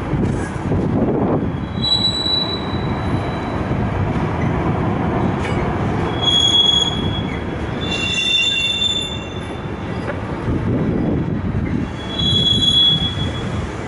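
Long intermodal freight train of container and swap-body wagons rolling past with a steady low rumble, its wheels giving short high squeals several times.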